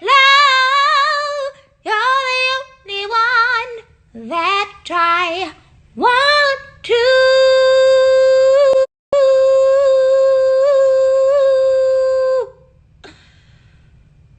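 A woman singing a cappella without words: several short wavering runs, then one long held high note with a brief break near the middle, which fades out shortly before the end.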